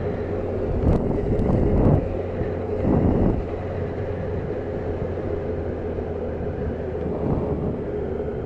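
Motorcycle engine running at a steady cruise along a rough, bumpy lane, with wind noise on the microphone and a few louder surges in the first three seconds.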